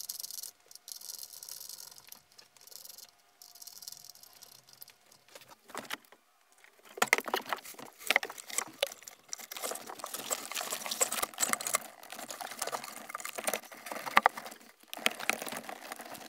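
Handling noises: faint rustling and small clicks as speaker wire is fitted to the subwoofer box's terminal, then from about seven seconds in louder, irregular scraping, rubbing and knocking as the carpeted 10-inch Kicker subwoofer box is worked into a tight space.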